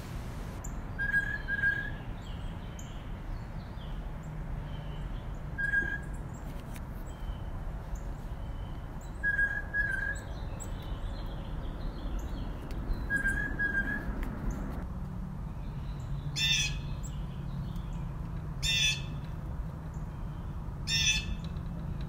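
Blue jay calls of two kinds: first a short, clear whistled call repeated four times a few seconds apart, then, about halfway through, a harsh jay scream repeated three times about two seconds apart.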